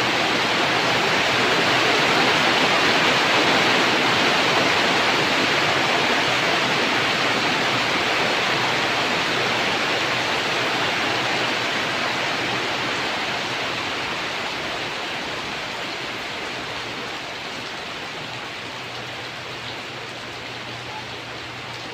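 Rain falling steadily, a dense hiss that gradually eases and grows quieter over the second half.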